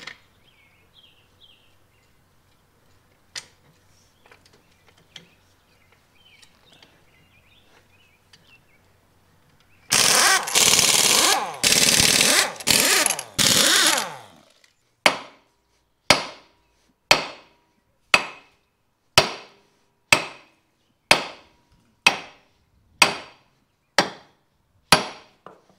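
Pneumatic impact wrench run on a forklift wheel's lug nuts in several short, loud bursts, then a sledgehammer struck on the wheel about once a second, around eleven heavy blows that each ring briefly.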